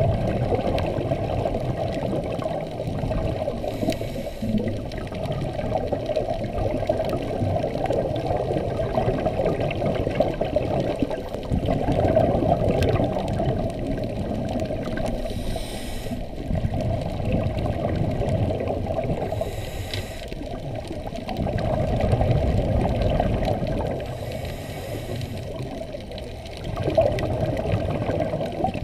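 Muffled underwater ambience on a scuba dive: a steady low water rush, with a swell every few seconds from the diver's exhaled regulator bubbles.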